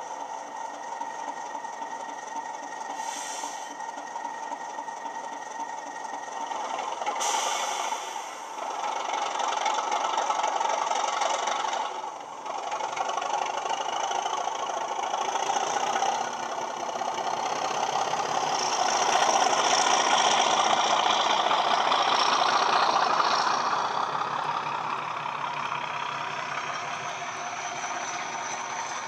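ESU LokSound hifi sound decoder in a model Class 37 diesel locomotive playing the English Electric V12 diesel engine sound through the model's small speaker as the train runs. The engine sound grows louder as the locomotive comes past, loudest about two-thirds of the way in, then eases.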